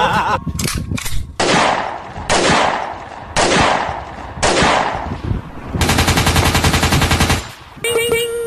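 Gunshots: a few quick shots, then four loud single shots about a second apart, each with a long echoing tail. They are followed by a rapid, evenly spaced automatic burst lasting about a second and a half.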